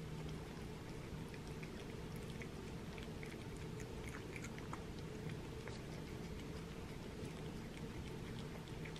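A cat chewing and lapping soft meat food from a paper plate: faint, irregular wet clicks and smacks. Underneath runs a steady low hum from a washing machine and dryer.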